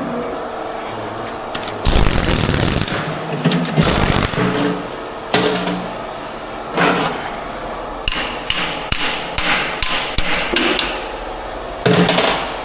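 Hammer blows on metal, struck by hand in engine repair work: several heavy single strikes a second or two apart, then a quicker run of lighter taps, then one more heavy blow near the end.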